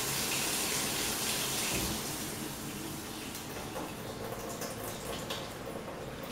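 Kitchen faucet running into a stainless sink, its flow dying away about two seconds in as the house's remote-controlled main shut-off valve closes and the water pressure drops, leaving a few faint drips.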